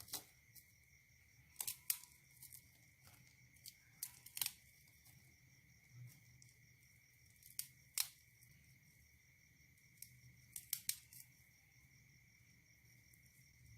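Slime with Nabati wafer biscuit mixed in, worked by hand: scattered sharp clicks and pops, some in quick clusters, over a faint steady high tone.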